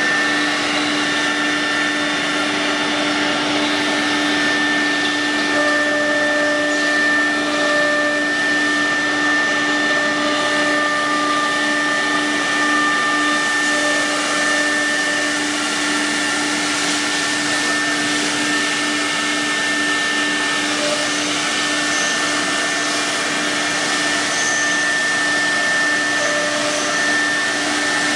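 CNC nesting router running, routing a melamine-faced board: a steady spindle whine over the rush of its dust extraction, with a few higher whine tones coming and going.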